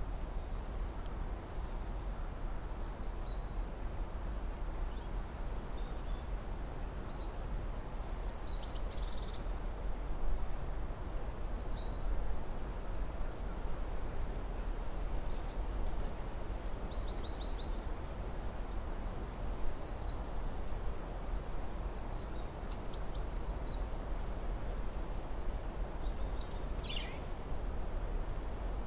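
Outdoor ambience: a steady low rumble, with small birds chirping and calling in short, high phrases throughout. Near the end comes one call that drops steeply in pitch.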